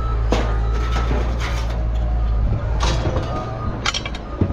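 Pieces of scrap aluminum clanking as they are tossed onto a pile, a few sharp strikes about a second apart, over a steady low engine rumble.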